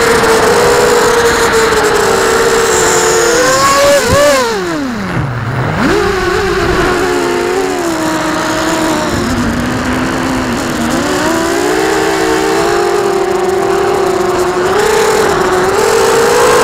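FPV drone's electric motors whining, heard close from the onboard camera. The pitch holds steady, falls steeply about four seconds in as the motors slow, climbs back, and wavers up and down with the throttle for the rest.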